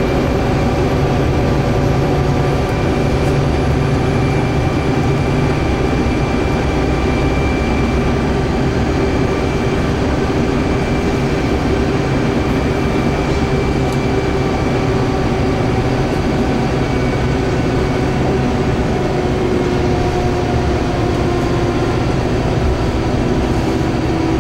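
Scania K280UB city bus heard from inside the cabin while it travels at steady speed: a constant drone from its rear-mounted engine, with road and tyre noise and a few faint whining tones that slowly drift down in pitch.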